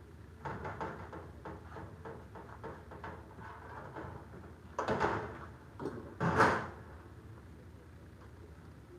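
Garage door lock hardware being handled and fitted to a hollow door section: small metal clicks and rattles, then two louder scraping rattles about five and six seconds in, the second the loudest.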